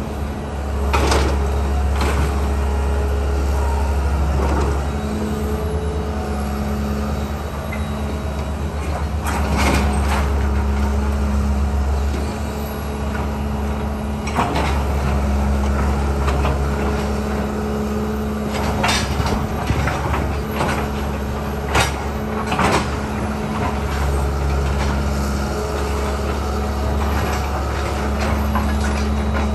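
John Deere tracked excavator's diesel engine running steadily, its note shifting as it works, while the bucket knocks and crashes into concrete and building debris about ten times.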